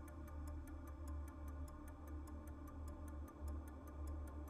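Faint steady ticking, about five ticks a second, over a low hum.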